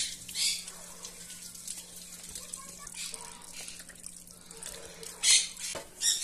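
Tomatoes and green chiles being rinsed by hand in a plastic bowl of water: sloshing and splashing, with a few louder splashes, the loudest just after five seconds in. A steady low hum underneath stops near the end.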